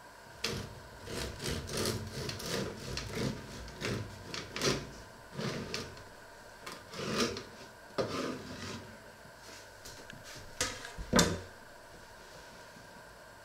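A knife sawing through a dark bread loaf on a wooden cutting board, in a run of short rasping back-and-forth strokes lasting about nine seconds. A few sharp knocks follow near the end, the last one the loudest.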